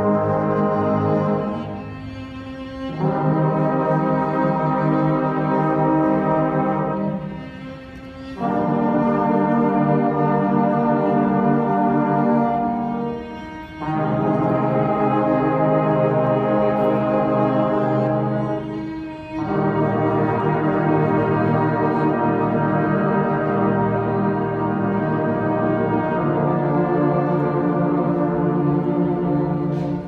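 Marching band brass section of trumpets, mellophones and sousaphones playing long held chords. The phrases last several seconds and are separated by brief breaks for breath.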